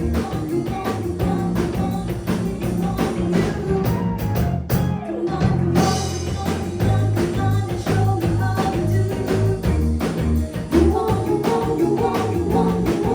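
Live pop-rock band playing an instrumental passage between choruses: drum kit keeping a steady beat under bass, electric guitar and piano. The band briefly thins out about five seconds in, then comes back in full.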